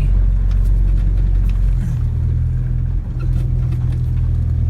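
Old utility truck's engine running at low speed while it drives a rough track, its note shifting about two seconds in, with faint scattered knocks.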